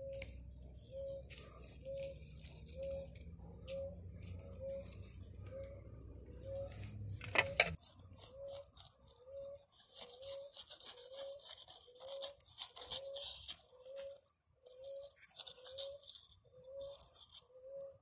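Moss being pulled and torn up from the soil of a pot by hand: rustling and crackling of moss and dry leaves, with a sharp knock about seven seconds in, where a low hum also stops. Behind it a short chirp repeats steadily, nearly twice a second.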